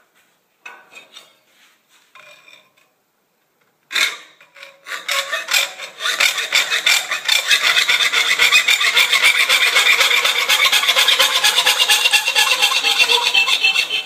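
Hacksaw cutting a thin piece of aluminum road-sign sheet clamped in a bench vise. A few faint scrapes come first, then from about four seconds in a steady run of rapid, even back-and-forth saw strokes.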